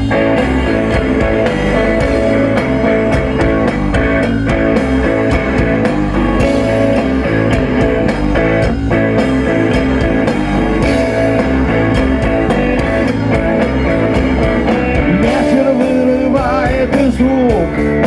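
Rock band playing a song intro, guitar to the fore over a steady beat; a singing voice comes in near the end.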